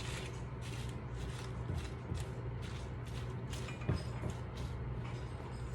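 Spinach being stirred into a simmering sauce in a pan: a run of short scraping strokes, two to three a second, over a steady low hum.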